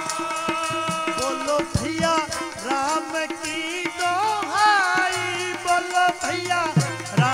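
Kirtan music: a harmonium holds steady tones under a singer's wordless, ornamented vowels that bend in pitch. A tabla pair keeps the beat with regular strokes and low bass strokes that fall in pitch.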